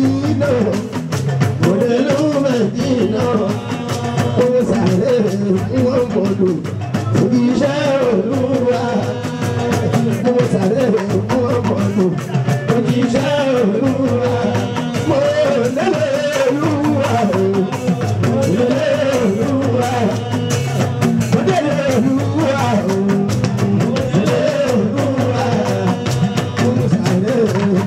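Live fuji music: a male singer sings a wavering melodic line into a stage microphone over steady drums and percussion.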